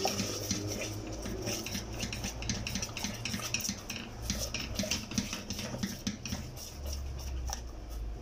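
Wooden spoon stirring fast around a metal saucepan, with quick, regular scrapes and knocks against the pan as cream is beaten into hot caramel to make caramel sauce.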